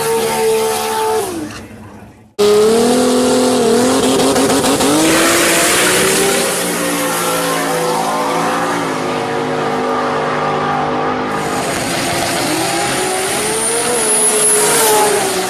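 Race car engine running at high revs, its pitch rising and falling with the throttle. About two seconds in the sound fades and cuts off abruptly, then comes straight back loud.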